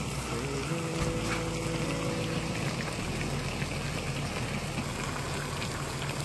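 Braised beef pizzle and testicles simmering in an iron wok over a wood fire: a steady bubbling hiss with scattered faint pops.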